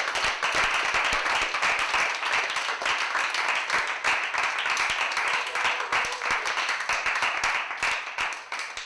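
Audience applauding, a dense, steady clapping of many hands that begins to thin out and fade near the end.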